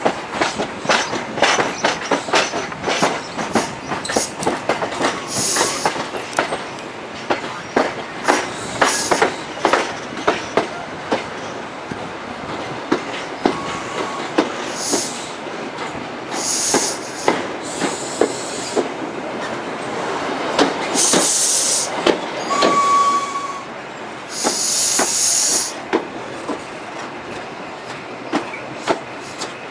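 HST (InterCity 125) train rolling slowly over points and rail joints: rapid, irregular clicks and clunks from the wheels, thinning out in the second half. There are two short wheel squeals and several short hisses.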